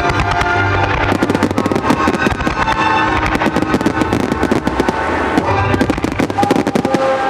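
Fireworks finale barrage: many shells bursting and crackling in quick succession, growing denser about a second in. Music with long held notes plays under the bursts.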